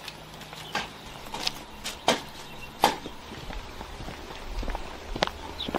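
Rolled tea leaves rustling on a round bamboo tray as they are spread out by hand: a few separate short rustles and soft taps.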